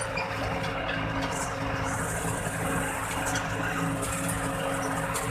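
A motor vehicle's engine humming steadily with road and tyre noise while driving. A louder hiss builds about two seconds in.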